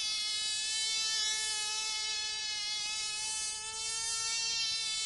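Tiny model aeroplane engine running flat out with a high, steady buzz, its pitch wavering slightly.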